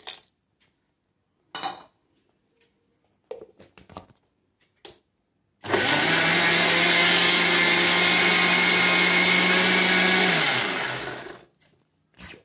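Electric mixer-grinder (mixie) running steadily for about five seconds, churning boiled-milk cream with ice water into butter, then switched off and spinning down. It is preceded by a few short knocks and followed by a click near the end.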